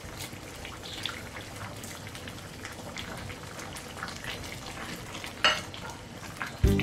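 Rice vermicelli bubbling in a soy-sauce broth in a nonstick pan while a silicone spatula stirs it: a steady simmering hiss with small soft scrapes and clicks, and one louder knock about five and a half seconds in.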